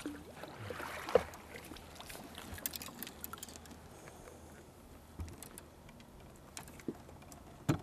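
Faint low hum of the boat's motor under scattered light clicks and knocks from fishing gear and a landing net being handled in an aluminium boat while a walleye is brought in.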